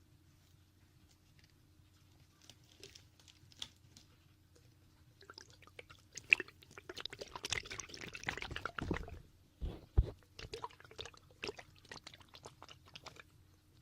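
Fingertips rubbing and tapping at a microphone's ear for finger ear-cleaning ASMR, giving crackly, wet-sounding clicks and rustles. They start sparse after a couple of quiet seconds and turn dense about halfway, with a couple of sharp thumps.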